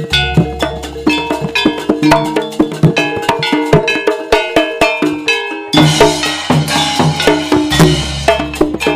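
Instrumental interlude of Javanese gamelan-style music: quick metallic strikes over drums and deep gong-like low notes. The band gets fuller and brighter about six seconds in.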